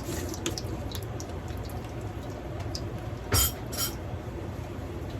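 Kitchen utensils clinking against a pan and dishes: a few light clicks, then two louder knocks a little past halfway, over a steady low hum.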